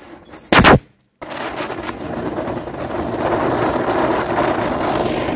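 A firecracker goes off with one sharp bang about half a second in; after a brief gap, a Diwali firework spraying sparks hisses and crackles continuously, swelling toward the end.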